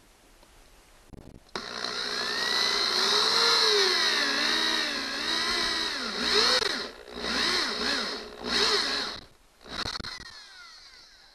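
Cordless 20V power drill with a 3/4-inch bit boring a hole through drywall. It starts suddenly about a second and a half in and runs steadily, its pitch wavering, for about four seconds. It then runs in several short bursts before stopping near the end.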